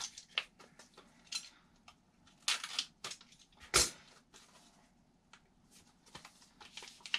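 Clear plastic packaging bag crinkling and rustling as it is handled, in short irregular rustles, the loudest about two and a half and four seconds in.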